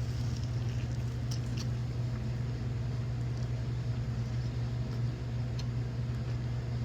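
A person chewing a mouthful of chicken biscuit: faint scattered mouth clicks over a steady low hum.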